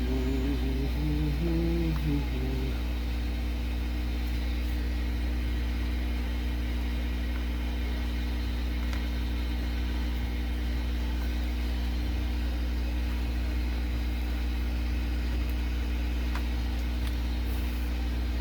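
Steady low electrical hum with a few faint ticks, and a brief low murmur about two seconds long at the start.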